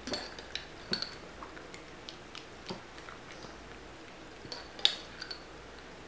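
Two small dogs licking ice cream from a metal spoon and a small glass: scattered wet licks and tongue smacks, with sharp clicks of the spoon against the glass. The loudest click comes about five seconds in.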